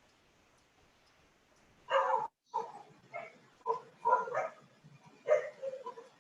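A dog barking: about seven short barks at irregular intervals, beginning about two seconds in.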